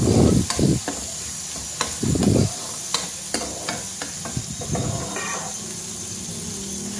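Chopped onion and tomato sizzling in hot ghee in a metal karahi while a steel spoon stirs and scrapes them, the spoon clicking against the pan. Louder stirring strokes come near the start and about two seconds in.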